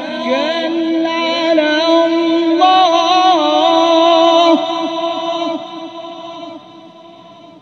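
A male qari's Quran recitation (tilawat) holding one long, ornamented note, the pitch wavering and stepping through a melismatic run, then fading away over the last three seconds.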